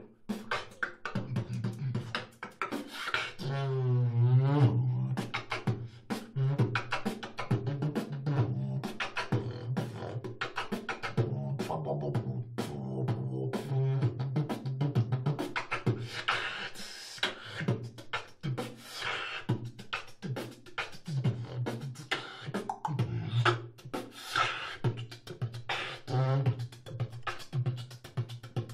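Solo vocal beatboxing: rapid mouth-made kick, snare and hi-hat clicks over a hummed bass line. Around four seconds in, a wobbling vocal tone goes up and down in pitch.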